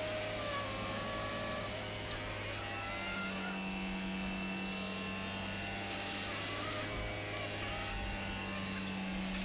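Hydrovac excavator running steadily: a low engine and vacuum-blower hum under a constant rushing noise as the vacuum hose sucks soil out of the hole.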